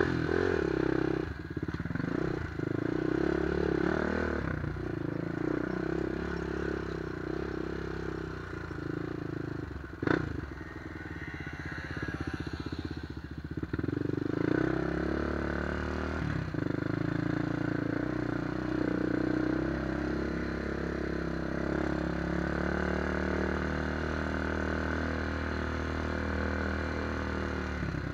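2003 Honda 400EX's single-cylinder four-stroke engine, fitted with a White Bros exhaust, running under way on a dirt trail. It revs up and down through the first half, then runs more steadily. There is a sharp knock about ten seconds in.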